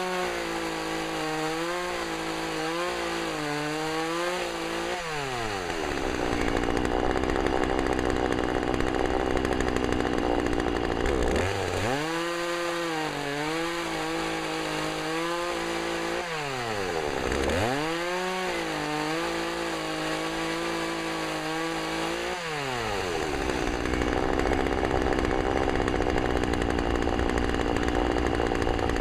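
Two-stroke chainsaw throttled up to high speed three times, each time held for several seconds and then dropping back. This is typical of bucking limbs held in a chainsaw stand.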